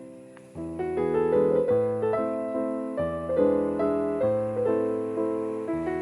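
Background piano music: a soft quiet patch, then from about half a second in a steady melody of single notes over slower bass notes.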